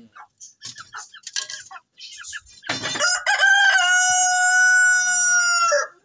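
Chickens clucking in short calls, then about three seconds in a rooster crows once: a long, loud, steady-pitched crow lasting about three seconds.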